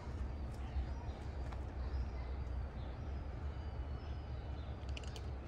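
Outdoor ambience: a steady low rumble with faint high bird chirps, and a short run of clicks about five seconds in.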